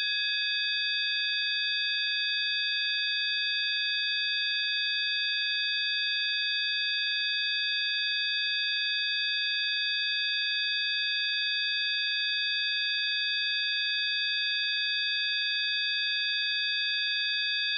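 Several steady, high-pitched pure tones sounding together without any change: the synthesized tone of a frequency-healing track.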